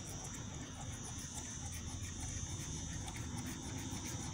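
A euro coin scraping the scratch-off coating of a paper lottery ticket in short repeated scrapes. It is faint under wind rumble on the microphone and a steady high buzz.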